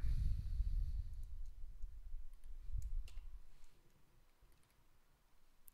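A few faint, sharp computer-mouse clicks over a low rumble at the desk, which fades out after about three and a half seconds, leaving near silence.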